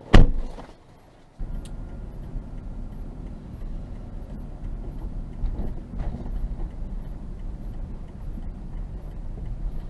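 A car door shuts with a loud thump. About a second and a half in, the steady low rumble of the car driving starts abruptly, heard from inside the cabin.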